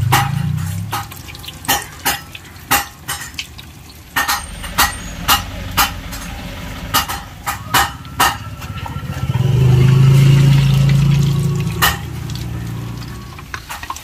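Uzhunnu vadas (urad dal fritters) deep-frying in a pan of hot oil over a wood fire: irregular sharp pops and crackles. A low rumble swells and fades about two-thirds of the way through.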